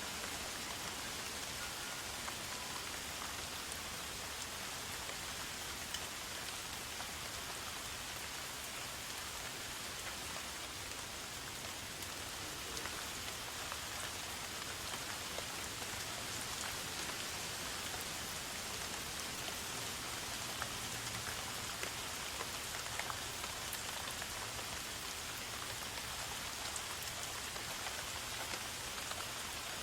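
Steady rain falling: a dense, even hiss of drops with scattered louder single drips.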